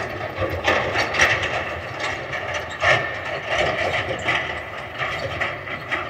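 A running machine clattering and rattling steadily, with irregular clanks over a constant hum.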